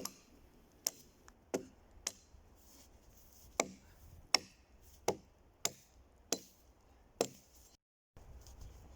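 Axe chopping the branches off a felled dry pine trunk: about ten sharp, separate blows at an uneven pace, each one clean and short.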